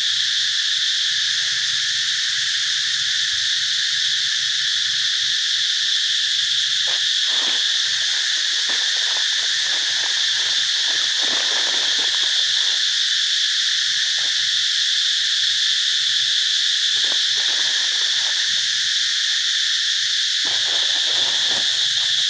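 A steady, high-pitched drone of a dense insect chorus, unchanging throughout. Soft irregular rustling comes and goes from about a third of the way in.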